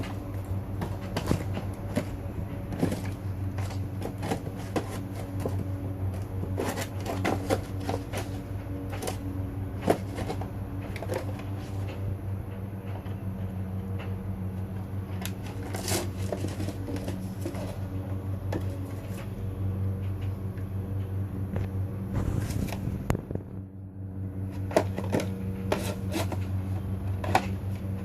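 Cavalier King Charles Spaniel puppy chewing and tearing at a cardboard tissue box: irregular crinkling, ripping and scuffing of cardboard and tissue paper, over a steady low hum.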